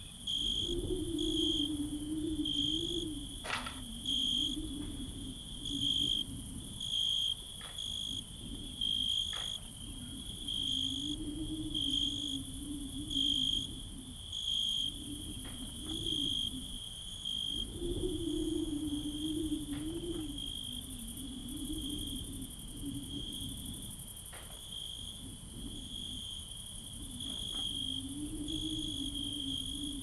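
Insects trilling steadily in a high tone that swells about once a second, over a low wavering hum, with a few faint sharp clicks scattered through.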